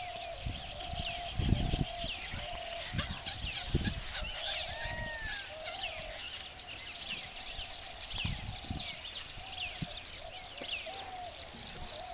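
Chorus of wild birds calling: many short, repeated arched calls and quick high chirps overlapping throughout, broken by a few brief low thumps, the loudest about a second and a half in and another near four seconds.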